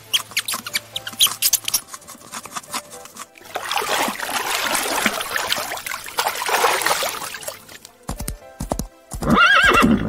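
A horse neighing near the end, a loud call that falls in pitch, with hooves clip-clopping just before it. Earlier come light clicking and rustling, then a few seconds of rushing water noise.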